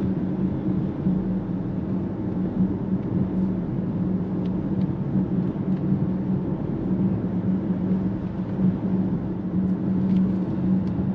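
Mercedes-AMG GLE 63 S's V8 running steadily at cruising speed, heard inside the cabin as a steady low drone over the hiss of tyres on a wet road.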